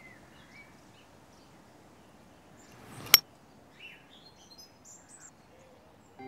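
Faint outdoor ambience with scattered bird chirps, and one sharp click about three seconds in.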